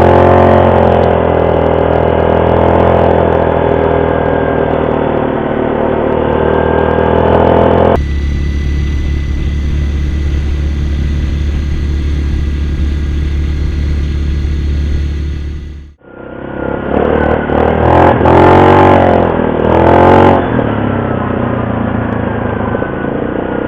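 ATV engines running under way, the pitch rising and falling as the rider speeds up and eases off, with wind on the microphone. About eight seconds in, the sound changes abruptly to a steadier, lower engine drone with wind hiss. About sixteen seconds in, the rising and falling engine returns.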